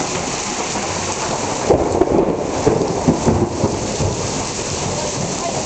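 Heavy rain pouring steadily as thunder rumbles in about two seconds in, following a lightning flash, and rolls for a couple of seconds.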